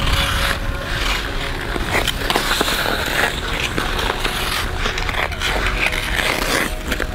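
Ice skate blades scraping and carving on outdoor rink ice, with a few sharp clacks of a hockey stick on the puck.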